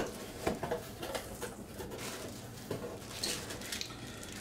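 Handling noise: a sharp knock, then a few faint clicks and soft rustling as small items and packaging are moved about.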